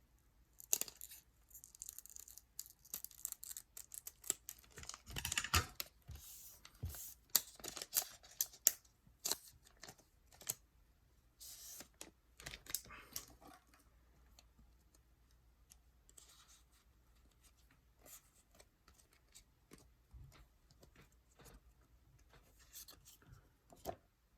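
A foil booster pack torn open and crinkled, then the trading cards inside handled and slid one over another, with light papery ticks.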